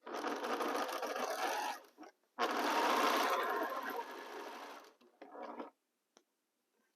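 Sewing machine stitching a seam: two runs of about two seconds each with a short stop between, then a brief burst about five seconds in.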